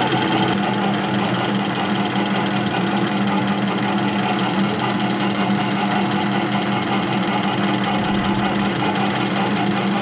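Metal lathe running with its tool taking a 3 mm cut in a spinning plastic roller blank, chips flying off; a steady machine drone.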